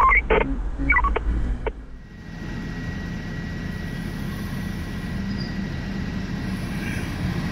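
Fire engine's diesel engine running steadily as the truck drives up the street toward the listener, louder near the end as it draws close; no siren. Before a cut about two seconds in, a few short clipped sounds are heard over a low cab rumble.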